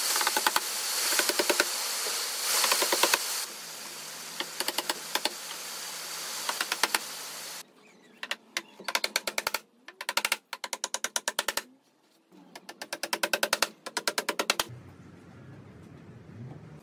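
Claw hammer driving nails into pine fence-paling boards, in several bursts of rapid, evenly spaced taps. A steady hiss runs under the first half and stops suddenly.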